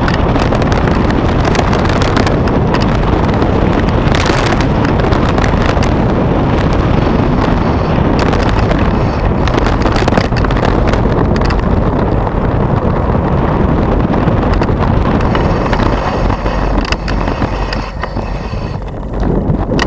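Mountain bike riding fast down a rough gravel track: rushing wind on the microphone over the rumble of the tyres, with frequent knocks and rattles as the bike hits bumps. It goes briefly quieter near the end on smoother asphalt.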